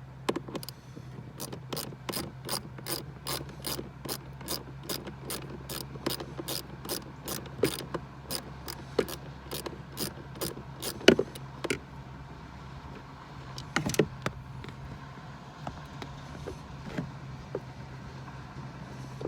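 Ratchet wrench with a small socket turning a bolt on a blower motor resistor. Its pawl clicks evenly, about two to three times a second, and stops a little past halfway, followed by a couple of louder knocks and a few scattered clicks.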